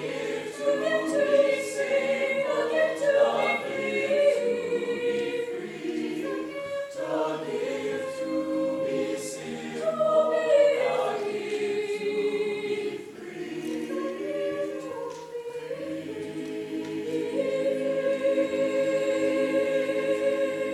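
Mixed-voice chamber choir singing a cappella in close harmony, then holding a long final chord for the last few seconds before cutting off together at the end of the piece.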